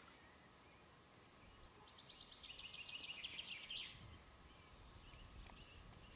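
A songbird singing faintly, a fast run of repeated chirping notes lasting about two seconds, starting about two seconds in, over quiet outdoor background noise.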